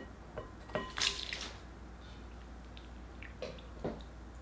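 Scissors snip into a water balloon filled with liquid slime activator, and the activator gushes out and splashes into a glass bowl of glue, the loudest splash about a second in, followed by a couple of smaller drips and clicks.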